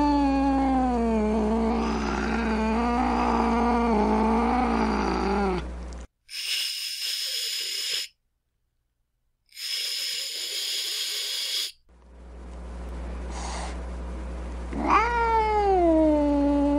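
An angry domestic cat's long, wavering, low moaning yowl. It breaks off and is followed by two hisses of about two seconds each, with a short silent gap between them. Near the end a second drawn-out yowl starts, rising in pitch at its onset.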